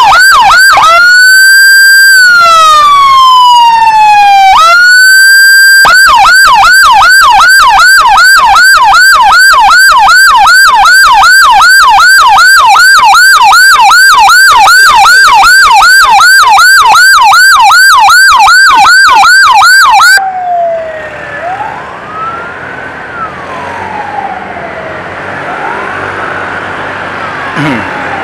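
Electronic emergency siren in a fast yelp, about three rises and falls a second, with two slower sweeps near the start. It cuts off suddenly about twenty seconds in, leaving a fainter, slower wailing siren over traffic.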